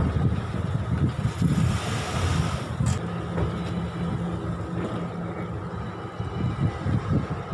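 Maruti Suzuki Alto's small petrol engine running at low speed as the car creeps onto the steel deck of a ro-ro car ferry, with a steady hum from about three seconds on. A single sharp knock near three seconds in.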